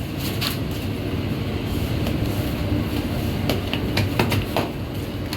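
Bakery machinery running with a steady low rumble, with irregular clicks and knocks over it.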